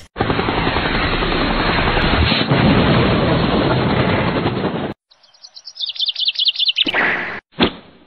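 A loud, dense crackling noise for about five seconds that cuts off suddenly, followed by a quick run of high, downward-sliding chirps and a sharp click near the end.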